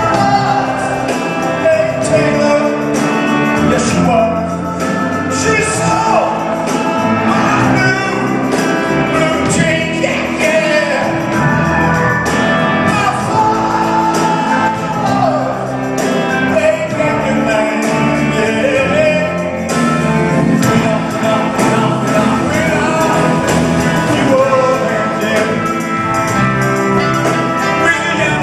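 Live rock band playing in a large hall, a male voice singing over bass guitar and drums.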